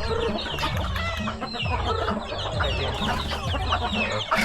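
Backyard chickens clucking and chirping, many short calls overlapping, over a low hum.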